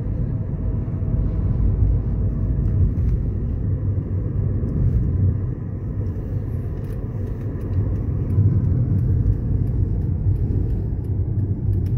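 Steady low rumble of a car in motion, road and engine noise heard from inside the cabin.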